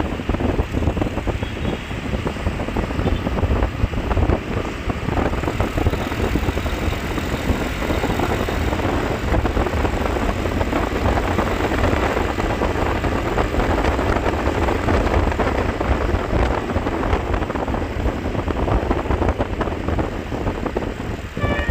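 Steady rumble of a vehicle on the move, engine and road noise with wind buffeting the microphone.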